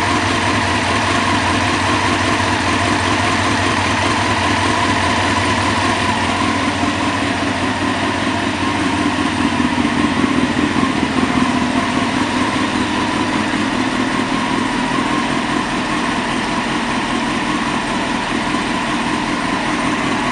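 Honda CBR929RR motorcycle's inline-four engine idling steadily, swelling slightly about ten seconds in.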